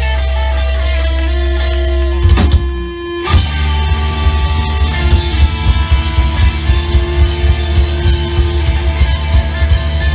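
Live rock band playing loudly: electric guitar over bass and drums. Held notes give way to a hit and a brief break about three seconds in, then the full band comes back in on a fast, driving beat.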